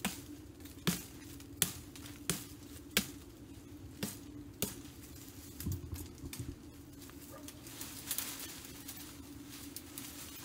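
Sharp knocks and snaps on a thin sapling stem as it is cut and worked loose, about one a second for the first six seconds. From about eight seconds in, leaves and branches rustle as the pole is pulled free.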